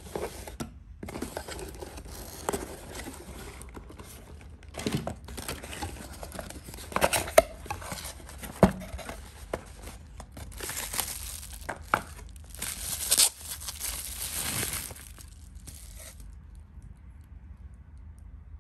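Plastic bubble wrap and polythene bags crinkling and rustling as they are handled and unwrapped, with a few sharp clicks and knocks; it stops about two seconds before the end.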